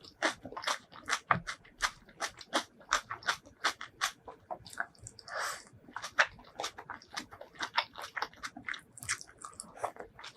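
Close-miked eating sounds: a person chewing and crunching food in quick sharp crunches, about two or three a second, with a longer, noisier sound a little past five seconds in.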